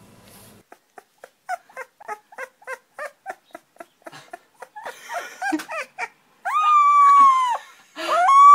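Puppy giving short, quick whimpering yips, about three a second, then breaking into howls: two long howls that rise, hold and fall away in pitch.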